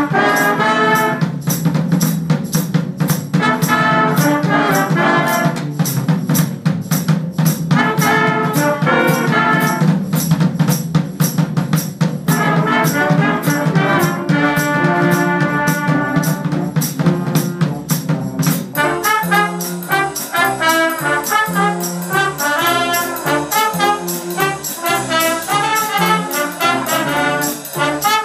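Youth jazz band playing a swing tune: trumpets and trombones over a steady drum-kit beat. About two-thirds of the way in the band moves into a new section with separate, punchier notes.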